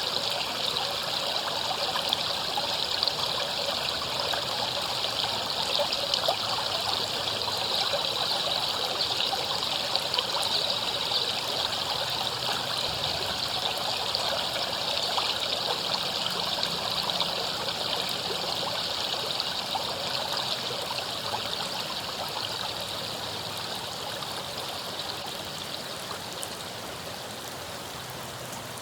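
River water flowing and splashing over rocks, a steady rushing that grows gradually quieter over the last several seconds.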